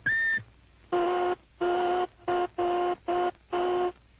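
Pulsed laboratory test tones. A steady high tone cuts off just after the start; after a short gap a lower tone with a buzzy edge is switched on and off six times, in beeps of uneven length.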